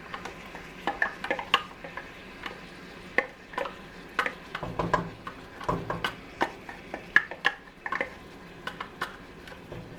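A utensil knocking and scraping against a bowl and cooking pot at irregular intervals as a yogurt and ground-onion mixture is spooned onto chicken. A couple of duller thumps come near the middle.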